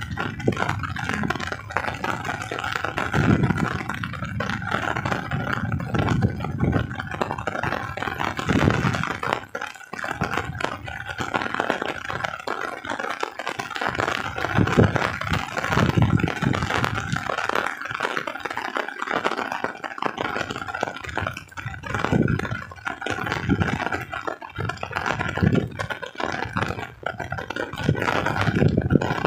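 Small motor vehicle's engine running as it drives along, with the body and canopy rattling and clattering over the road.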